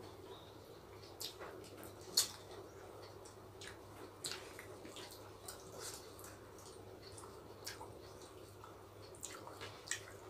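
Wet eating sounds of two people eating rice and curry by hand: scattered lip smacks and mouth clicks, the loudest about two seconds in and again near the end, over a faint steady hum.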